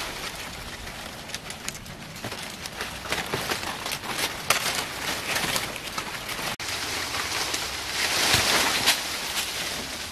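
Tree branches and leaves rustling, with many small crackles and snaps of twigs and dry leaves as a person climbs through them, and a louder, denser rustle of dry leaves about eight seconds in.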